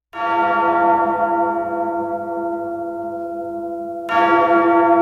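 A large bell tolling twice, about four seconds apart. Each strike rings on with a long, slowly fading hum.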